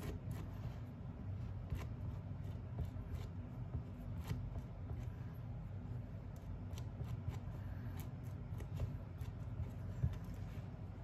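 A knife scraping spread across a slice of seeded bread in short, irregular rasping strokes, over a steady low hum.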